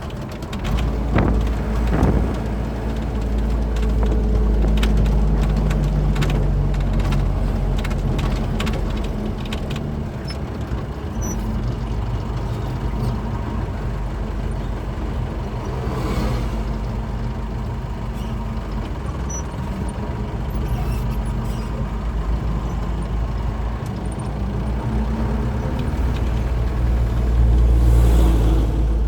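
Diesel truck engine running while under way, a steady low drone over road noise with rattles in the first few seconds. There is a short hiss about halfway through, and the engine grows louder near the end.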